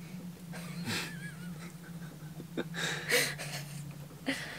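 Stifled laughter: breathy wheezes and snorts of suppressed giggling in short bursts, with a brief high squeak just after a second in. A steady low hum runs underneath.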